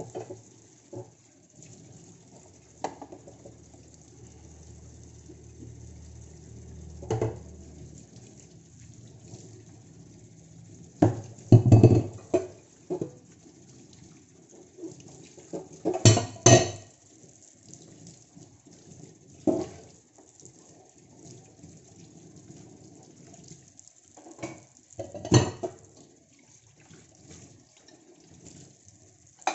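Scattered clinks and knocks of kitchen pots and dishes, with a few louder clatters around the middle of the stretch. A low hum sits underneath for the first several seconds.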